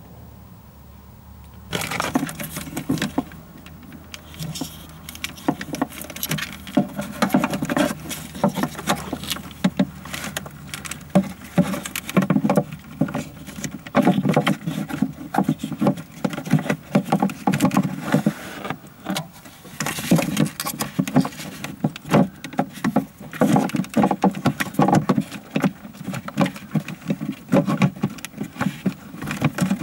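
Continuous clattering, clicking and rustling of hands working with tools and small metal parts, starting about two seconds in.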